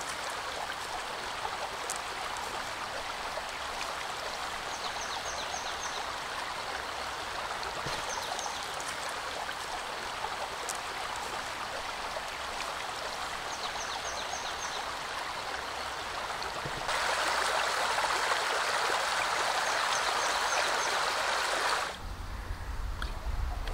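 Shallow river running over a gravel and pebble bed, a steady rush of water with a few faint high chirps over it. It grows louder about two-thirds of the way through, then drops back near the end, where a low rumble comes in.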